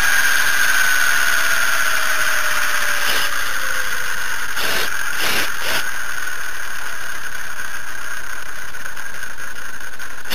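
Model helicopter's motor and rotor spooling down after landing: a whine that falls slowly in pitch over the first four seconds, over a steady hiss, with a few sharp knocks around the middle.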